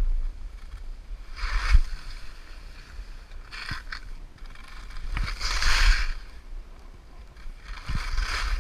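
Skis hissing across fresh snow through a series of turns: four swishes about two seconds apart, the third the longest, over a low rumble of wind on the microphone.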